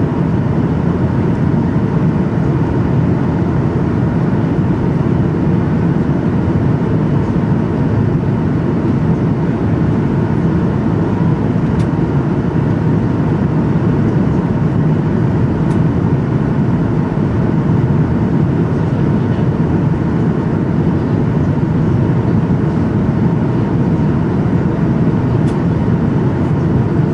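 Aircraft cabin noise heard from inside the plane: a steady, even low rumble of engines and air rushing past the fuselage, with a few faint ticks.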